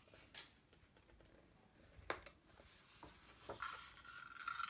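Faint paper handling as a picture book's page is turned: a few soft ticks, then a light rustle near the end.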